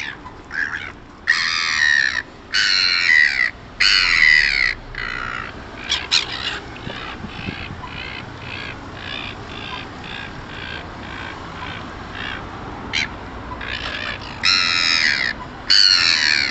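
Seagulls calling: several loud, harsh calls near the start, a run of shorter, fainter repeated calls in the middle, and more loud calls near the end.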